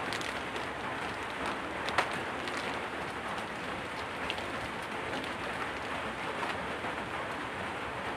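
Steady rain, with a few faint crackles of a plastic snack wrapper being handled and one sharper crackle about two seconds in.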